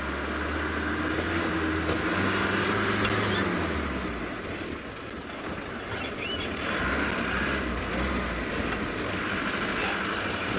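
Safari game-drive vehicle's engine running as it drives off after the animals, a low rumble that swells for the first few seconds, eases off about halfway through, then picks up again.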